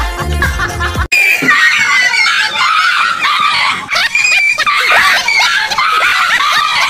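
Several voices screaming and shrieking at once, high-pitched and overlapping, after about a second of music that cuts off abruptly.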